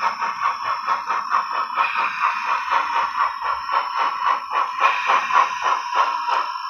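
Steam exhaust chuffs from a Soundtraxx Tsunami sound decoder, played through the small onboard speaker of an HO scale brass 2-8-2 Mikado model locomotive as it runs. The chuffs come in a steady, even beat of about four a second, with a thin, tinny tone.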